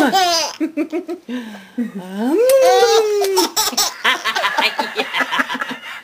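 Baby giggling: a long high squeal at the start and another about two and a half seconds in, each falling in pitch, with quick bursts of laughter between and after them. A woman laughs along near the end.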